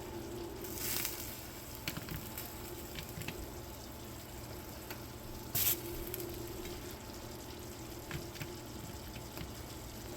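Quiet kitchen handling as cooked chicken pieces are laid onto a sauced flatbread: a few soft clicks and two brief scraping sounds, about a second in and near the middle, over a steady low hum.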